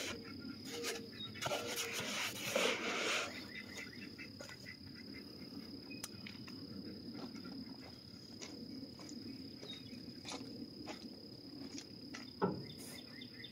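Insects trill steadily at one high pitch throughout. About two to three seconds in, a styrofoam packing lid rubs and squeaks as it is pushed into a cardboard box, followed by a few light knocks and one short thump near the end.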